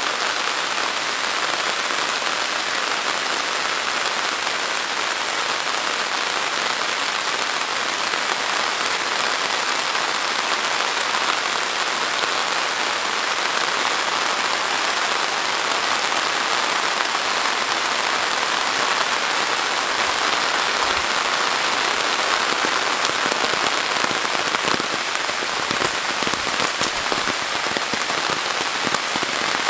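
Heavy rain falling steadily on trees, grass and a wet road: an even, unbroken hiss of rain.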